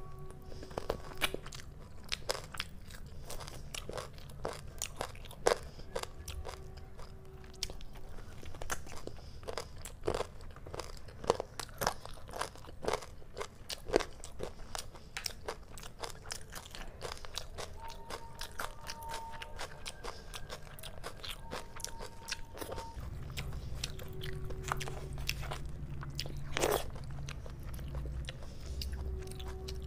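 Close-miked chewing and crunching of chicken leg curry with rice eaten by hand: many sharp crunching clicks with wet mouth sounds.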